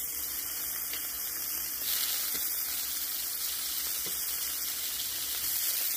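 Raw quail legs sizzling as they are laid one by one into a hot stainless steel skillet, a steady frying hiss. It grows louder about two seconds in as more pieces hit the oil.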